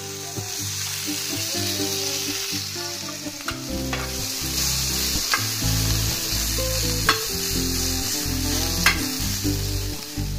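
Spiced chicken pieces sizzling as they fry in oil in a flat iron pan, stirred with a metal spoon, with four sharp clicks of the spoon against the pan about two seconds apart.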